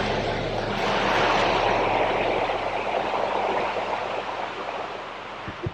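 Steady roar of a rain-swollen creek's rushing floodwater through an open truck window, easing off somewhat near the end, with the truck's engine running low underneath.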